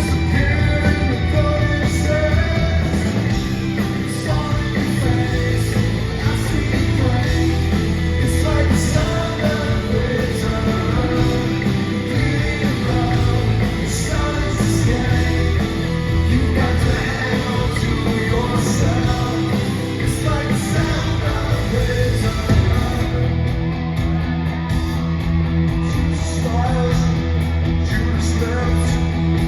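Live rock band playing loud, with a male lead vocal singing over electric guitars, bass and drums.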